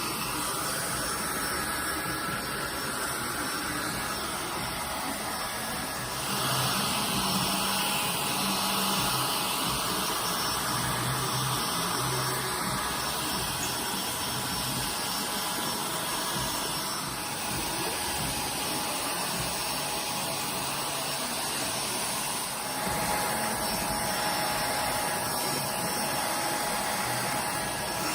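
Hair dryer running steadily, a continuous rush of air with a faint whine. Its sound shifts several times, most clearly about six seconds in.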